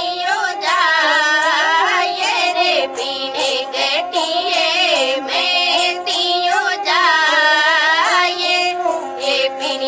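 A high singing voice holding long, wavering notes with heavy vibrato over a steady drone, with regular percussion strokes: a folk song performance.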